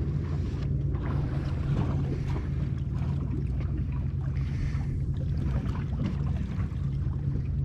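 Boat engine running steadily with a low hum, under a wash of wind and water noise.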